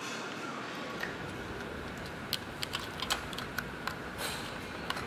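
A run of small, irregular clicks and light knocks, starting about two seconds in, from the plastic headlight housing and its metal fittings being handled and pushed into place on a motorcycle's front fork, over a steady workshop hum.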